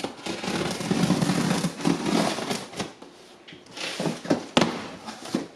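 Packaging being handled and opened: irregular crackling and rustling, with several sharp clicks, the loudest about four and a half seconds in.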